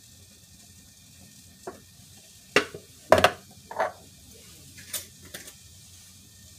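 Pots, pans and cooking utensils knocking and clinking: about six separate clatters, the loudest a quick double knock a little past the middle.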